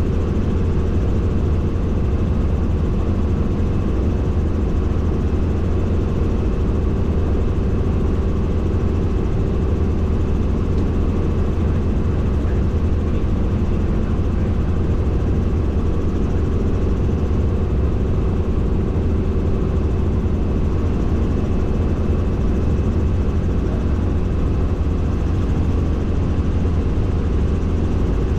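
Helicopter in flight: steady, loud rotor and engine noise with a deep low drone and a constant hum.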